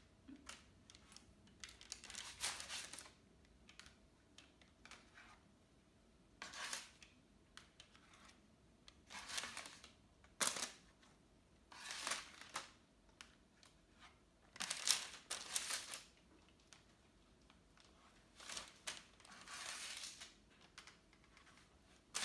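Spatula scraping under baked cookies on parchment paper as they are lifted off a baking tray onto a cooling rack: short, faint scrapes and rustles every couple of seconds, with a sharper click about ten seconds in.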